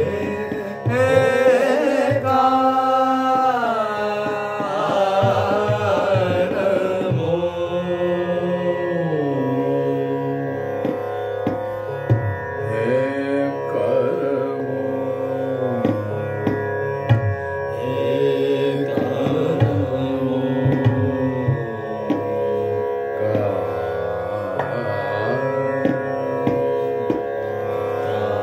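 Male voice singing a slow Hindustani classical bandish in Raag Bihag, with long gliding, held phrases over a steady drone and tabla strokes keeping vilambit (slow) ektaal.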